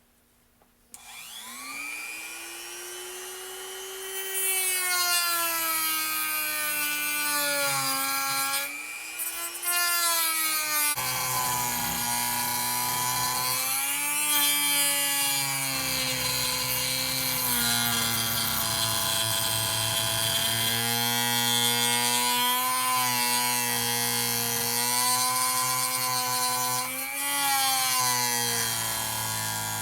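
Dremel rotary tool spinning up about a second in and grinding into the hardened outer race of a mower-deck spindle bearing, its whine dipping and recovering in pitch as the cutting wheel bites and eases off, with a few brief letups.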